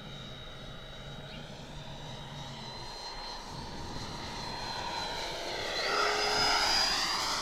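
Electric ducted-fan whine of an 80mm RC F-86 Sabre jet on a slow pass with full flaps. The whine grows steadily louder as the jet comes closer, and from about six seconds in it takes on a sweeping, phasing sound and rises in pitch.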